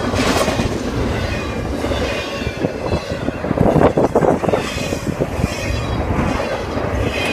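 Train passing close by: a steady rumble and clatter of wheels over the rails, with faint thin wheel squeal and a louder surge about four seconds in.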